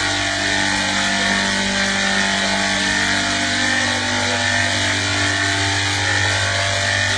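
Steady electrical hum with a continuous static hiss over it, like the sound of an old television set.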